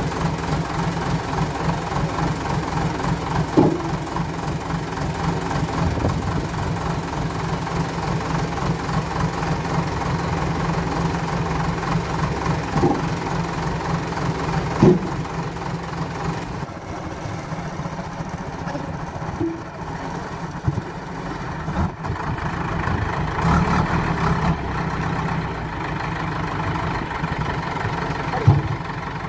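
JCB backhoe loader's diesel engine idling steadily, with a few sharp knocks as wooden logs are dropped into its steel front bucket.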